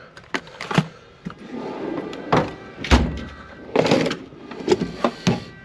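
Drawers of a steel Snap-on tool box being slid and shut, with tools clunking inside: a series of separate knocks, the heaviest about three seconds in, and a sliding scrape just before four seconds.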